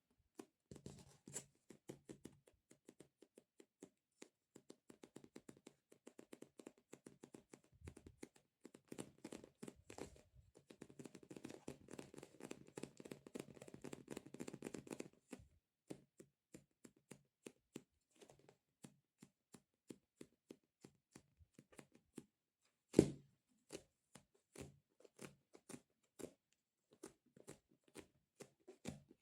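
Fingertips tapping on and peeling off a sticky squishy stress-relief toy, quiet and close. The taps come in quick, dense runs, then slow to about two a second, with one sharper, louder tap about three quarters of the way through.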